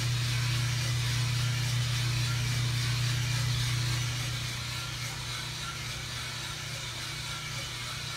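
US Roaster Corp 3-kilo coffee roaster running mid-roast: its drum motor, exhaust fan and burner make a steady low hum over a continuous rushing noise. It gets a little quieter about halfway through.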